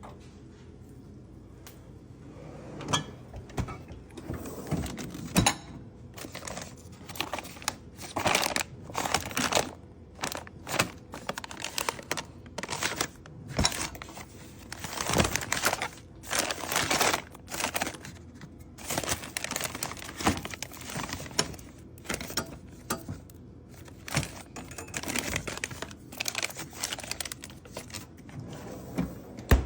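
Irregular clicks, knocks and rustling of things being handled in a kitchen refrigerator drawer, with one sharp knock near the end.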